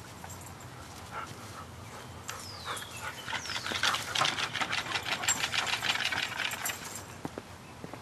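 Woodpecker calling: two short descending squeals about two seconds in, then a fast chattering series of about ten notes a second lasting some three seconds.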